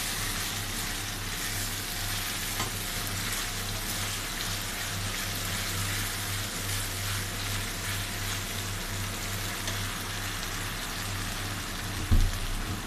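Onions, capsicum and chillies sizzling in hot oil in an aluminium pan, stirred with a spoon, over a steady low hum. A single thump about twelve seconds in.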